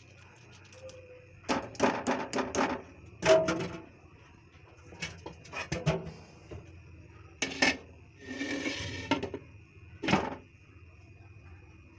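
A spoon clinking and knocking against a cooking pot of dal, with a quick run of knocks about a second and a half in and scattered knocks after, over a faint steady high hum.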